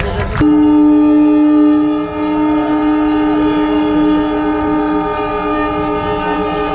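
A conch shell (shankh) blown in one long, steady, horn-like note. It starts suddenly about half a second in and holds without a break.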